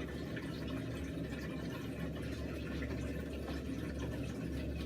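Steady room background: a low hum with a faint, even hiss, unchanging and with no distinct events.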